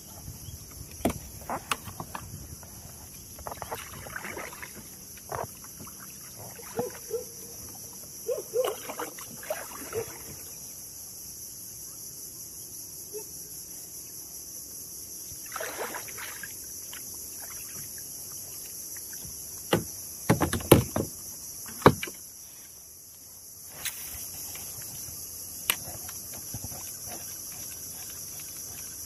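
Kayak paddling: scattered paddle splashes and knocks against the kayak's hull, the loudest cluster about two-thirds of the way through, over a steady high-pitched insect chorus from the riverbank.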